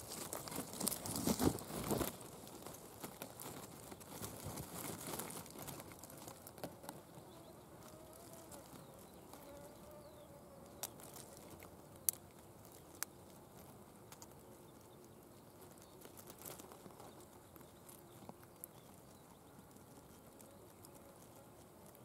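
Leaves and dry grass rustling and crackling as foliage is pushed aside by hand, loudest in the first two seconds and fading over the next few. After that comes quiet outdoor background with a few faint single clicks.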